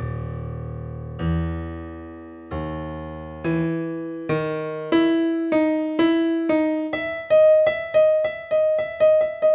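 Piano played solo. Deep bass notes ring out slowly at first. About halfway through, the bass drops away and single melody notes come quicker and quicker, with one high note struck again and again.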